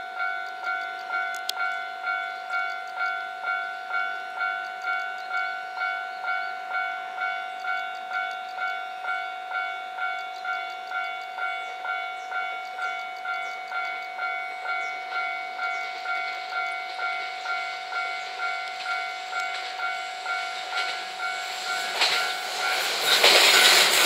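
Japanese railway level-crossing warning bell ringing steadily at about two dings a second. About two seconds before the end, a JR West 227 series electric multiple unit passes close by, and its loud running noise swamps the bell.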